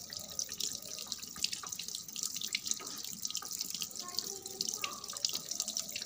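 Tap water running into a washing machine's tub as it fills: a steady splashing hiss with small drips and splashes.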